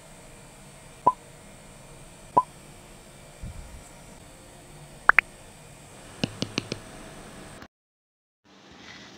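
Small sharp clicks and ticks of metal tubing and wire being handled and fitted onto a wooden strip. There are two single ringing ticks, a soft thud, a quick double click, then a fast run of about five clicks, followed by a brief dead silence.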